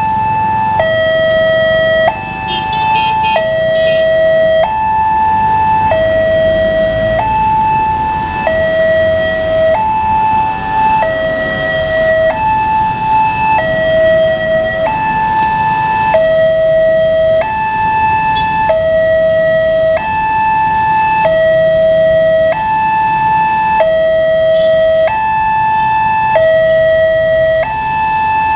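Railway level-crossing warning alarm sounding, an electronic two-tone chime that alternates a higher and a lower tone, each held a little over a second, over and over, the signal that a train is approaching and the crossing is closing.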